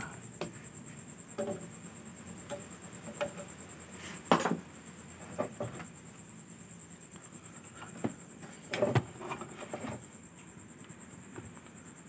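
A steady high-pitched pulsing trill runs throughout over a low hum, with scattered clicks and knocks from work on a TV circuit board, the loudest about four seconds in and another cluster near nine seconds.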